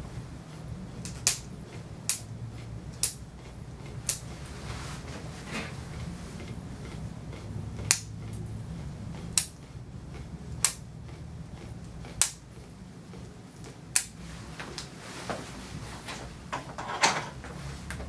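Hand-held dog nail clippers snipping a dog's toenails: about ten sharp clicks at uneven gaps of one to two seconds.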